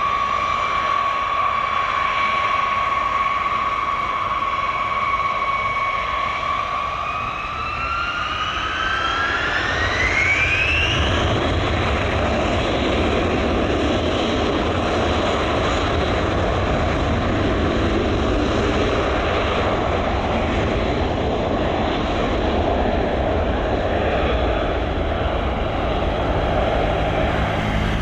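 B-52H bomber's eight TF33 turbofan engines whining, then spooling up with a steeply rising whine about eight to eleven seconds in. This gives way to a steady, loud jet roar as the bomber goes to takeoff power and begins its takeoff roll.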